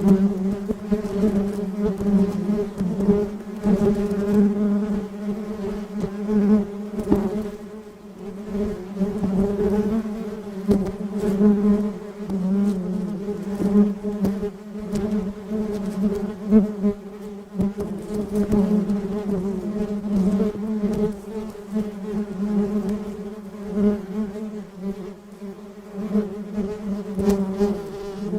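Bees buzzing: a continuous, steady-pitched wing hum that swells and fades in loudness.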